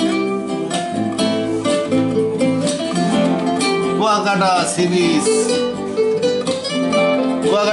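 Plucked acoustic guitar music playing steadily, with a few sweeping glides in pitch.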